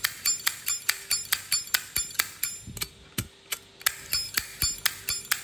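Brushed-chrome Zippo lighter's hinged lid being flicked open and snapped shut over and over, about four sharp metallic clicks a second, each with a bright ring.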